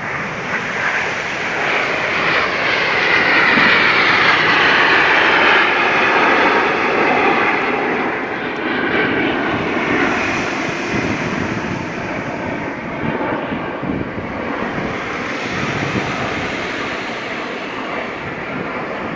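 Formation of CT-114 Tutor turbojet aerobatic jets flying past. The jet noise swells to its loudest a few seconds in, with a falling whine as the planes go by, then eases off but stays steady.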